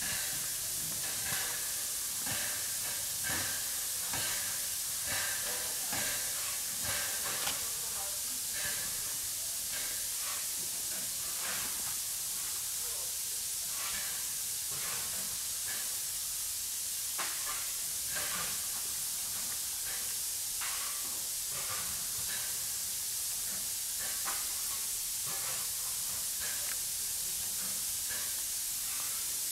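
Standing Harz narrow-gauge 2-10-2T steam locomotive 99 7241-5 hissing steadily as it vents steam, with short irregular knocks every second or so.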